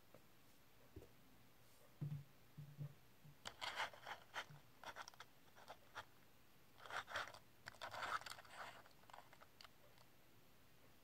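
Light scraping and clicking of a 1:64 die-cast toy car handled by fingers and moved on a tabletop, in a few short bursts, the loudest about seven to eight seconds in.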